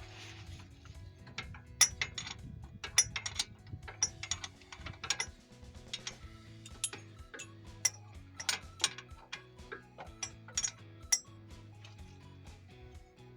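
Irregular metallic clicks and clinks of hand tools on metal parts, over quiet background music with a steady low tone.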